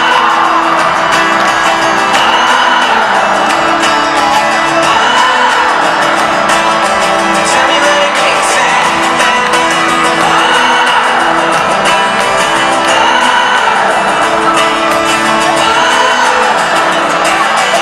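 Live pop concert heard from the audience in a large arena: a solo male singer with an acoustic guitar and a steady accompaniment, his sung phrases rising and falling again and again, with the crowd cheering and clapping along.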